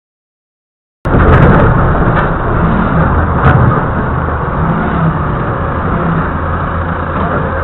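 Doosan 4.5-ton forklift's engine running steadily, heard from the driver's seat, cutting in suddenly about a second in after silence. A couple of short knocks sound over it.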